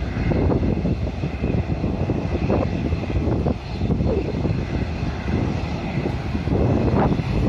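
Airliner engines running near the airfield, a steady rumble with a faint high whine, under heavy wind buffeting on the microphone.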